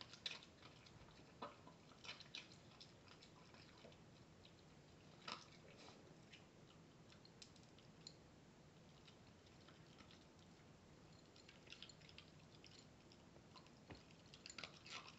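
Shiba Inu eating dry kibble from a bowl: faint, irregular crunching and clicks, coming thicker in the last few seconds.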